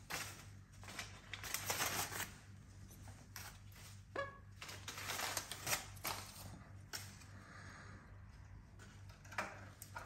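Red-tailed black cockatoo playing on its perch: irregular dry clicks, taps and scrapes of its beak and feet on the metal bar, with a short squeak about four seconds in. A steady low hum sits underneath.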